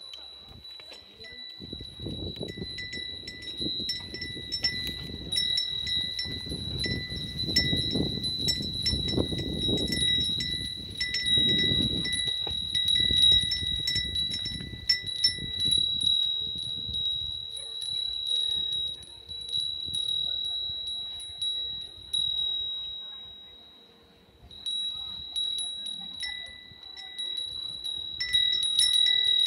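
Japanese wind bells (fūrin) tinkling and ringing steadily, struck again and again by their clappers. A low rumble sits under the first half.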